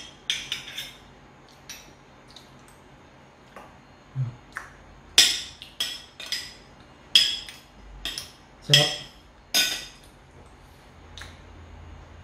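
Metal spoons clinking and scraping against a ceramic plate while cutting into and scooping a slice of cheesecake: a dozen or so short, sharp clinks at irregular intervals, loudest in the middle of the stretch.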